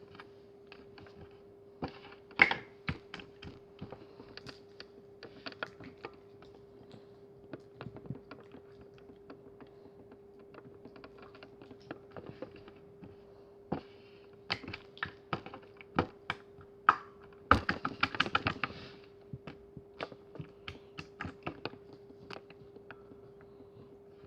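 Handmade slime being poked, pressed and squished by hand, making irregular small clicks and pops, with a denser run of crackling squishes a little after halfway. A faint steady hum runs underneath.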